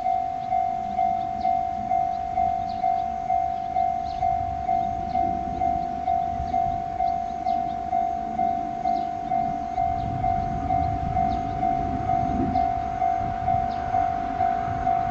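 Japanese level-crossing warning bell ringing in steady repeated strokes, about one and a half a second, as a train approaches and passes, its rumble on the rails growing louder about ten seconds in.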